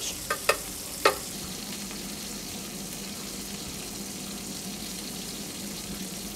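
Trout frying in butter in a pan: a steady sizzle, with a few sharp pops in the first second or so.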